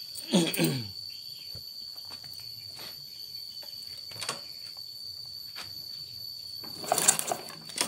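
Cricket trilling steadily on one high note throughout. Over it, a short loud sound falling in pitch about half a second in, a few faint clicks, and a brief clatter of handling near the end.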